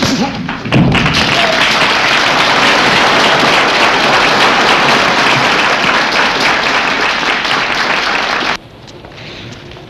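Boxing crowd applauding a knockout: loud, dense applause that starts about a second in and cuts off suddenly near the end.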